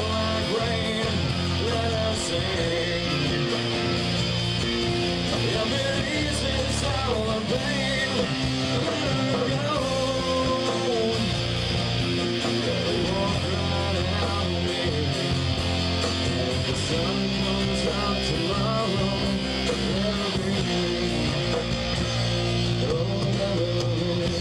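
Live rock band playing: electric guitars over bass and drums, with a melodic guitar line wavering through the middle of the passage.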